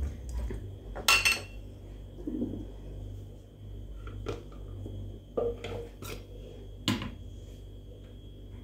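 Kitchenware being handled on a stone countertop: about half a dozen scattered knocks and clinks as bowls and a plastic blender beaker are picked up and set down, the loudest about a second in.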